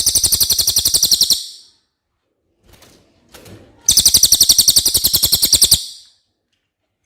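A cililin songbird singing two rapid, high trills of evenly repeated notes, about a dozen a second, each lasting about two seconds with a short pause between them.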